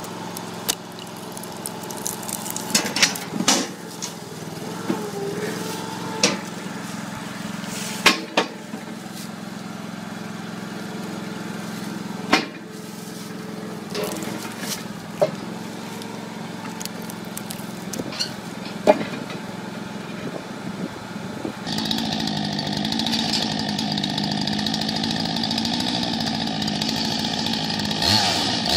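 Chainsaw running and cutting through short pieces of firewood, with sharp knocks now and then. About 22 seconds in it changes abruptly to a louder, higher chainsaw at full throttle, cutting through a stacked bundle of split logs.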